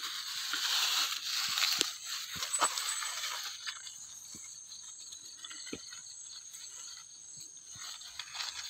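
Thin plastic carrier bag rustling and crinkling for the first few seconds as it is handled, then fainter scattered clicks and rustles of hands and the bag moving over stony ground.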